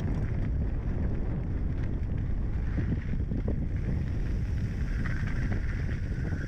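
Mountain bike riding a dirt singletrack: a steady low rumble of wind buffeting the action camera's microphone and the 29er's tyres rolling over the trail, with small knocks and rattles from the bike.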